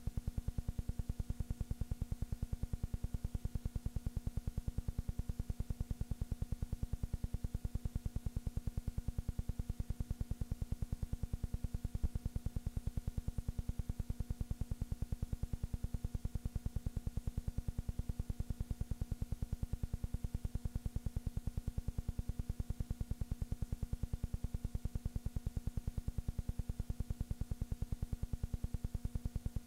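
Steady low electrical hum with a fast, even buzzing pulse, unchanged throughout. This is soundtrack noise, not any sound of the football game.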